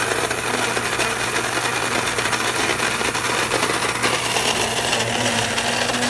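Secura SCG-903B electric burr coffee grinder running steadily, grinding whole coffee beans on its finest setting: a steady motor hum under dense grinding noise.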